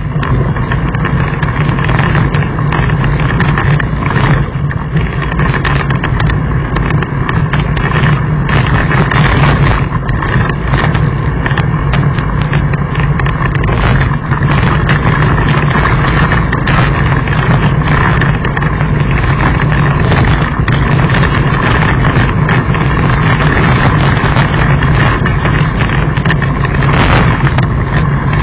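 Loud steady wind buffeting on a bike-mounted camera riding down a loose gravel track, with constant rattling and knocks from the tyre and frame over stones.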